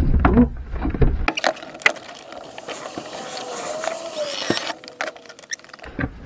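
Cordless drill running for about three and a half seconds, driving a screw through pine tongue-and-groove panelling into the van wall, then stopping.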